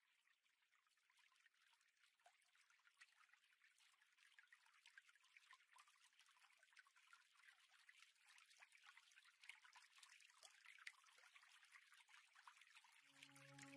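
Very faint recorded trickling water with many small drips, slowly fading in as the opening of a new-age music track. Sustained soft music tones enter near the end.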